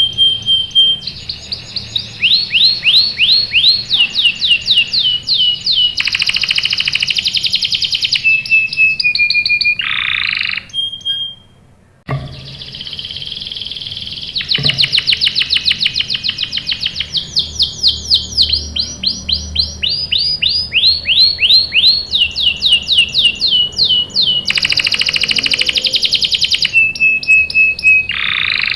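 Domestic canary singing: fast trills and rolls, each phrase a quick run of the same note repeated many times. The song breaks off briefly about twelve seconds in and then starts again.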